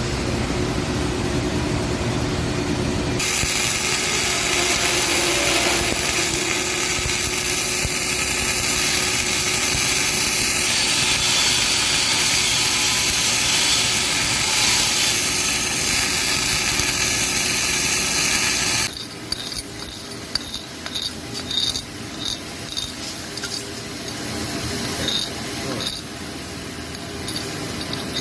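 Flux-cored arc welding on a pipe root pass: a dense, steady crackling hiss for about sixteen seconds, after a low hum at the start. About two-thirds of the way through it breaks into short stop-start bursts.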